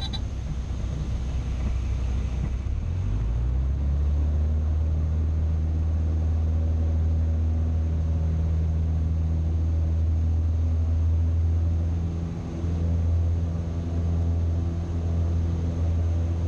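Citabria's single piston engine and propeller heard from inside the cockpit. The engine note climbs about three seconds in, then runs steadily at the higher speed, with a brief dip about twelve seconds in.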